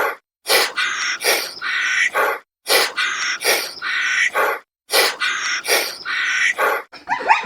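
An animal's harsh, rasping calls, the same short sequence repeated three times about every two seconds. Near the end a dog starts barking.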